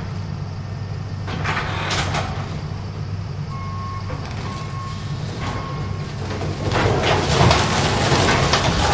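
Excavator engine running with a steady low hum while it demolishes a waterslide, with a couple of sharp knocks early on. Three evenly spaced alarm beeps sound around the middle, and near the end a louder, rougher noise builds as the machine works the slide structure.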